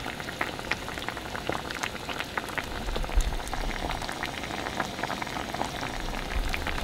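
Soy-sauce, sugar and corn-syrup braising liquid bubbling around lotus root slices in a pan on medium-high heat: a steady patter of many small pops.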